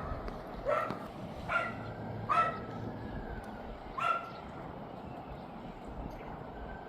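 A dog barking four short barks over the first four seconds or so, over steady rushing background noise.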